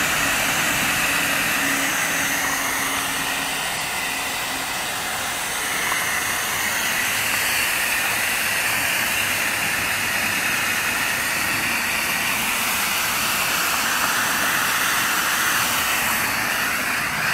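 Hose-end mist nozzle hissing steadily as it sprays a fine fog of liquid fertilizer over plant trays. A faint low hum sits underneath for the first few seconds.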